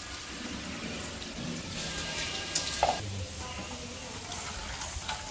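Coconut milk trickling and splashing from a squeezed cloth of ground coconut into an aluminium pot, with a few sharp clicks of handling a little before the middle.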